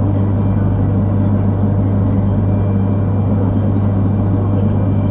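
Cabin running noise of a Yamagata Shinkansen Tsubasa train under way: a steady rumble with a constant low hum.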